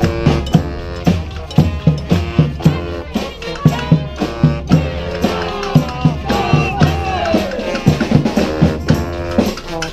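Street brass band playing: horns carry the tune over a steady, driving drum beat, with some sliding horn notes around the middle.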